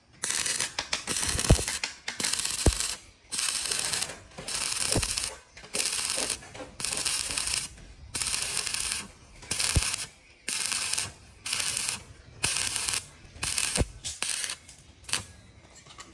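Stick (arc) welding a steel bracket onto a galvanized steel tube frame: the arc crackles in short bursts of about half a second to a second, roughly one a second, with a few low knocks in between.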